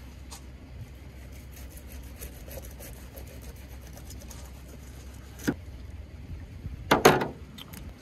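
Knife cutting into a striped bass: faint slicing and scraping over a steady low rumble, with a sharp knock about five and a half seconds in and a louder thump about seven seconds in.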